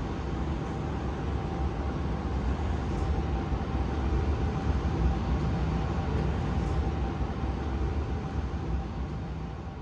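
ČD Class 162 electric locomotive standing at the platform with its equipment running: a steady low rumble with a faint steady whine, fading out near the end.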